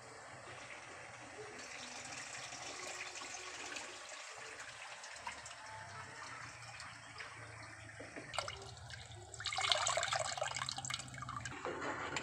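Coconut milk poured from a bowl through a small plastic strainer into an aluminium pot, trickling and splashing, with a louder, heavier pour near the end.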